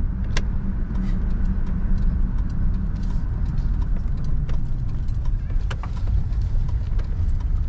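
Camper van driving slowly, a steady low engine and road rumble with scattered clicks and ticks throughout.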